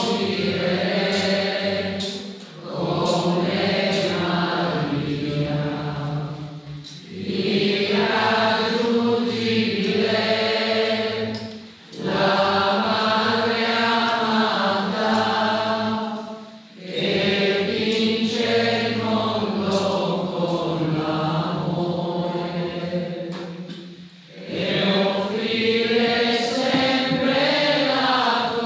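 Voices singing a hymn together, in phrases of four to seven seconds with short breath pauses between them.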